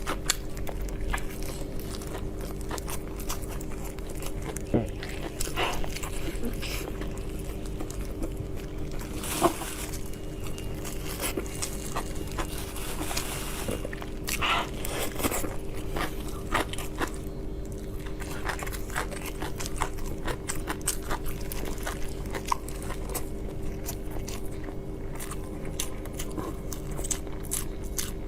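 A person chewing and biting food close to the microphone, with many short irregular smacks and crunches. A steady low hum sits underneath.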